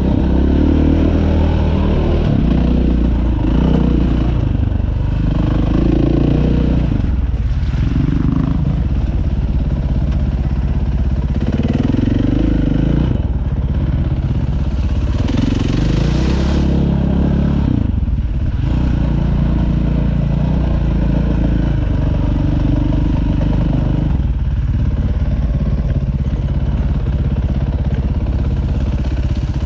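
Dirt bike engine running under load on a rough trail, its pitch rising and falling repeatedly as the throttle opens and closes.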